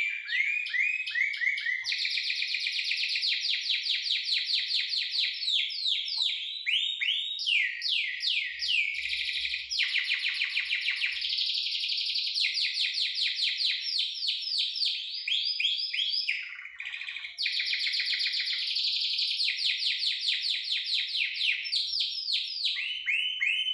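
Domestic canary singing a long, continuous song of rapid rolling trills, one phrase of fast repeated notes after another, with a short break about two-thirds of the way through. This is the kind of song used to spur other canaries into singing and breeding condition.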